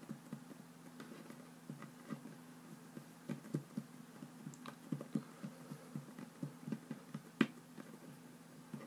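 Fingers pressing and patting soft play dough flat against a wooden tabletop: soft, irregular taps, a couple a second, with one sharper tap about seven seconds in, over a low steady hum.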